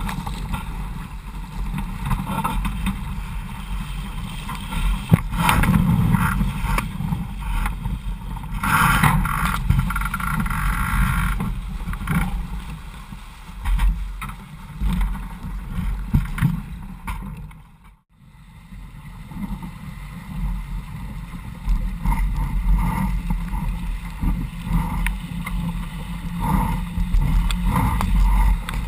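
Water rushing and splashing along the hull of an RS Vago sailing dinghy as it sails fast through chop, with gusty wind buffeting the microphone. About two-thirds of the way in the sound fades almost to nothing for a moment, then comes back.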